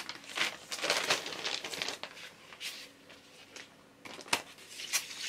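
Paper inner sleeves and cardboard LP jackets rustling and crinkling as they are handled, in irregular bursts, with a sharp tap about four seconds in.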